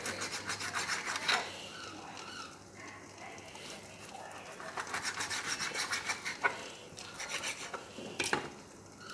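A kitchen knife sawing back and forth through a raw salmon fillet to cut it into portions, rasping against the fish and the cutting board in quick strokes. There are two spells of cutting: a short one at the start and a longer one from about halfway to near the end.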